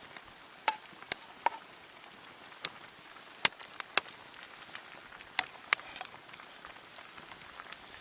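Campfire crackling, with irregular sharp pops and snaps, the loudest a few seconds in.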